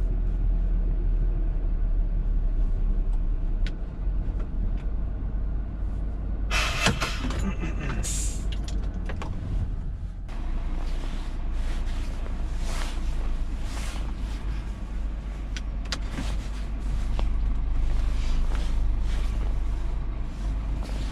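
Scania R truck's diesel engine running steadily, heard from inside the cab, with a short loud hiss about six and a half seconds in and another shortly after.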